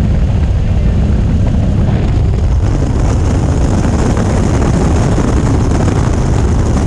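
Steady drone of a jump plane's propeller engine heard inside the cabin, mixed with rushing air. The rush grows brighter and louder about two and a half seconds in as the roll-up jump door is opened.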